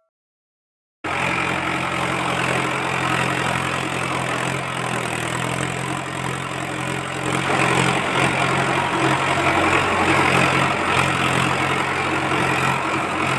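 A tractor engine sound effect, running steadily at an even idle-like pace; it cuts in abruptly about a second in and grows a little louder about halfway through.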